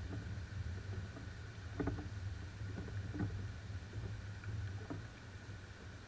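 Wind rumbling low and steadily on a trail camera's microphone, with a few short, faint sounds about two, three and five seconds in.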